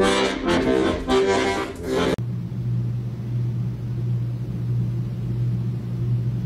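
Music: a sustained, many-toned chord for about two seconds, then cut off abruptly and replaced by a steady low droning tone.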